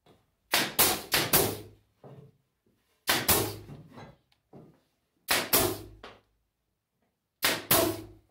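Nail gun firing nails into 3/4-inch MDF panels to tack a box joint together. Sharp shots come in four quick groups of two to four, each shot with a short ring.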